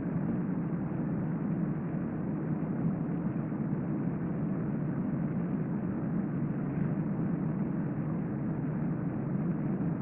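Steady, even rushing room noise with no breathing or snoring heard, while the sleeper is in a hypopnea with his breathing reduced.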